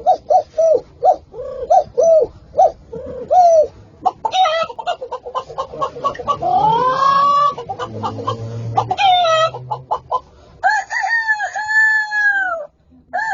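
Chickens clucking in quick short calls, about three a second, then a rooster crowing, with longer drawn-out calls near the end.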